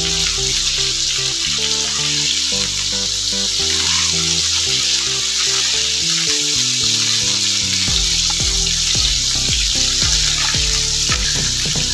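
Fish pieces sizzling steadily as they fry in shallow oil on a tawa.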